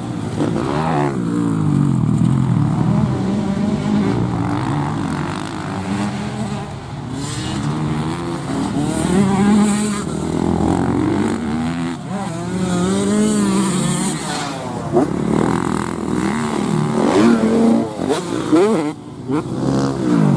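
Grasstrack motorcycle engine revving up and dropping back over and over, the pitch rising and falling with each throttle opening through the corners.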